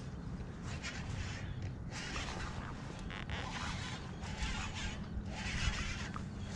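Wind rumbling on the microphone, with irregular swishing hisses coming and going several times.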